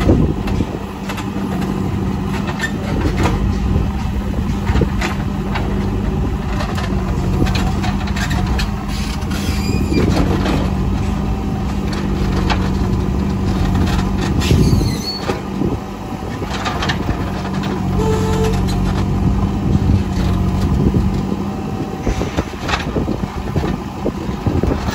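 JCB 3CX backhoe loader's diesel engine running steadily as the machine works, with occasional sharp knocks and clanks.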